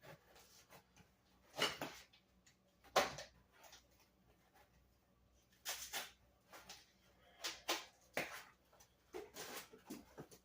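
Scattered handling noises from unpacking and assembling an e-scooter: about a dozen short knocks and rustles of parts and packaging, the loudest around 2 and 3 seconds in.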